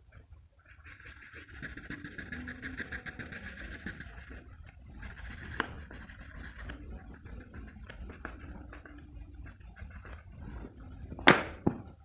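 Graphite pencil rubbing rapidly back and forth on paper, shading in fast scratchy strokes, which thin out after the middle. Near the end come two sharp knocks, the first the loudest sound here.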